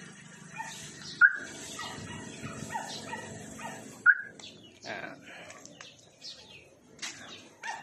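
Aftermarket PKE car alarm giving a short chirp about a second in and another about four seconds in, while the remote-started Toyota Vios engine idles underneath; at the second chirp the engine is shut off by remote and the steady hum stops. Faint chirps and clicks follow.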